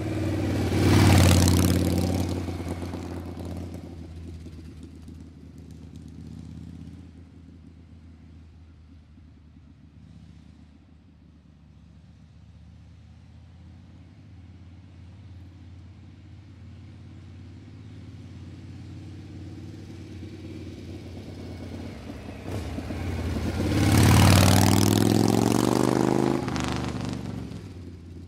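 Two motor vehicles pass by. The first is loudest about a second in and fades away, and a second builds to a peak near the end, its engine note falling as it goes past. Between them there is a low, steady traffic hum.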